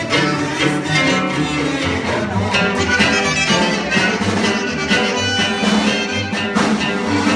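Live band playing Sonoran regional music, with a steady bass rhythm under the melody.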